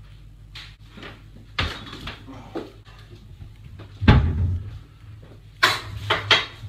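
Kitchen wall-cupboard door handled: a few knocks and clacks, the loudest and deepest thump about four seconds in, then a quick cluster of sharper clacks near the end.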